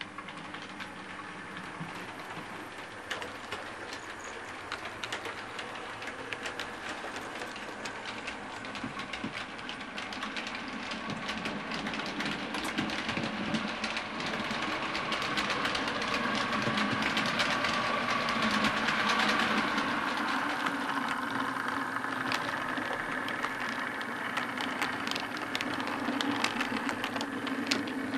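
OO gauge model trains running on the layout: a dense stream of small clicks as the wheels cross rail joints and points, over a steady motor hum. It grows louder towards the middle as a train comes close, then eases off a little.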